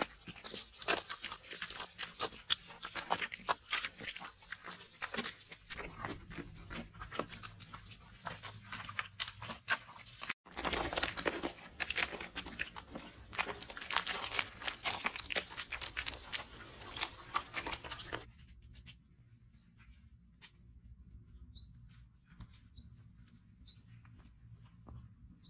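Bare hands smearing and rubbing wet mud plaster over a floor: a dense run of scraping, squelching strokes, broken by a short gap about ten seconds in, that stops after about eighteen seconds. After that a few short high bird chirps are heard.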